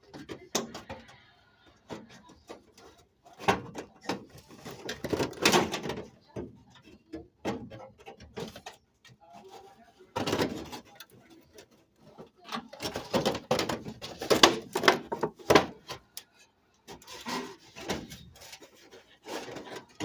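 Irregular knocks, scrapes and rattles of a register vent being worked into its opening by hand, coming in several clusters with short quiet gaps between them.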